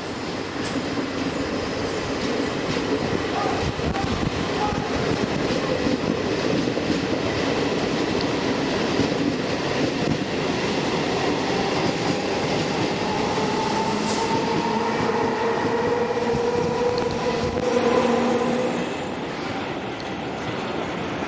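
Train running through the station: the rumble and clatter of wheels on rails, steady for most of the time. From about halfway through, a held high tone joins in, then stops as the sound falls off a couple of seconds before the end.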